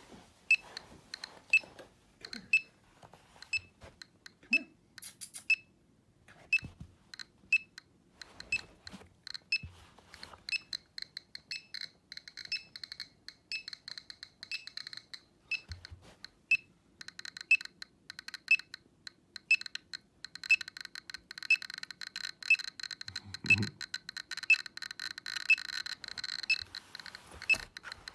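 Radiation survey meter (Geiger counter) clicking at irregular intervals, with a short beep about once a second, as it counts beta and gamma radiation from iodine-131. A little past halfway the clicks become much denser and a steady high tone sets in: a higher count rate.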